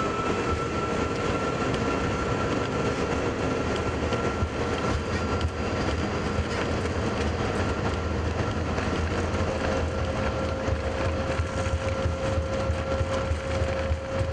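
Airbus A330-300 on its takeoff roll, heard from the cockpit: the engines at takeoff thrust with a loud, steady rumble of the wheels on the runway. Thin engine tones sit over the rumble, one rising slightly in pitch and a lower one growing stronger in the second half.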